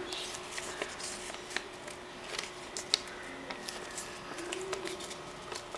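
A sheet of printed paper being folded and creased by hand: scattered short crackles and crinkles as the fingers press the folds.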